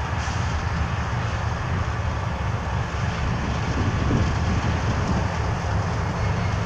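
Union Pacific diesel locomotives passing with a freight train, a steady heavy rumble of engines and wheels on the rails.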